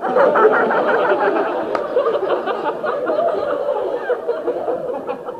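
Live theatre audience laughing loudly, starting suddenly and gradually dying down.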